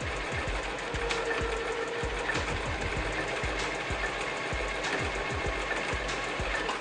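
Domestic sewing machine stitching a blind hem: the motor runs steadily while the needle works with a rapid, even clatter.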